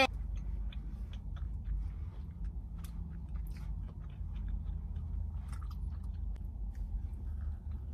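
People chewing and biting soft donuts, many small mouth clicks and smacks scattered throughout. A steady low rumble of the car's cabin runs underneath.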